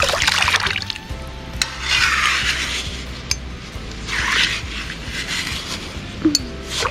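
River water sloshing as a round wire-mesh sieve is swirled in the shallows to wash sand through it, three splashy swishes about two seconds apart with a few small clicks. Background music plays underneath.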